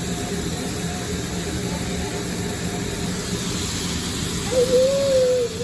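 Steady hiss of a hibachi griddle and restaurant hood, with food sizzling. Near the end a single held, slightly wavering tone, about a second long, rises above it.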